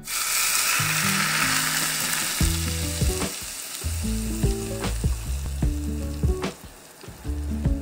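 Hot oil poured onto sesame seeds, chopped spring onion and chilli in a bowl, sizzling: it starts suddenly, is loudest in the first couple of seconds, then slowly dies down.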